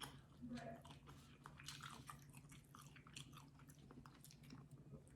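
Faint close-up chewing of food, with soft wet mouth clicks scattered throughout.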